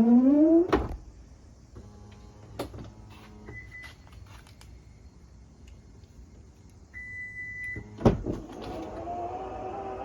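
Power rear gate of a Toyota Harrier (80 series) in operation. Its motor whine ends in a thump just under a second in, followed by small clicks and two short electronic beeps. Another sharp thump comes at about eight seconds, then the motor runs again with a steady, slightly rising hum.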